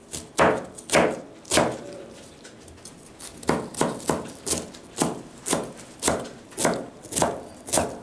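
Chef's knife chopping cabbage on a plastic cutting board: a few sharp chops, a pause of about two seconds, then a steady run of chops about two a second.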